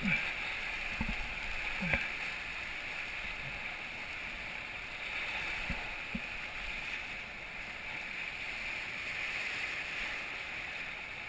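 Whitewater rapids rushing steadily around an inflatable raft, with a few dull knocks near the start and again about six seconds in.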